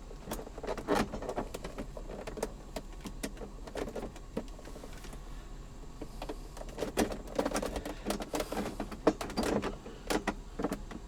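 Irregular clicks, knocks and rattles of a plastic center console and its hinge and screws being handled and fitted together, with a few brief low hums partway through.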